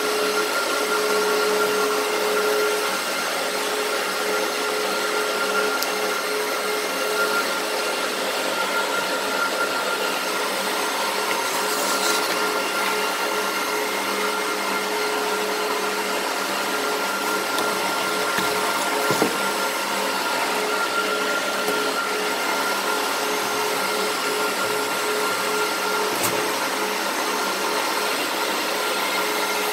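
Cooling fans of a Spondoolies SP36 X11 Dash miner running: a steady whirring with a hum and a higher held tone. A few light knocks come from cardboard box flaps being handled.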